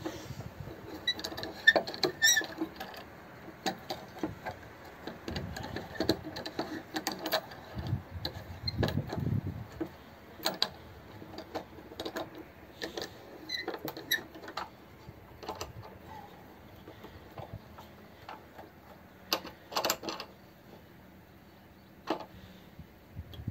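A metal C-clamp being fitted and its screw tightened to hold a small fatwood disc against a wooden log stump: irregular clicks, taps and knocks of metal and wood. The handling is busiest in the first half, then thins to a few sharp clicks.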